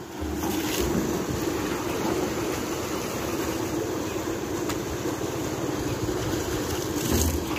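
Water poured from a bucket into a tall upright rusty pipe, rushing and splashing steadily as it pours through and gushes out at the pipe's base into a small brick basin.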